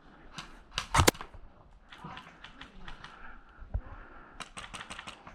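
Airsoft guns firing short rapid bursts of sharp clicks: a loud burst about a second in and a faster run of about seven shots near the end.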